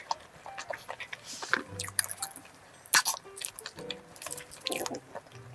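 Close-up eating sounds of a cream-filled cone croissant: flaky pastry crackling under repeated bites, with chewing between them. Soft background music plays underneath.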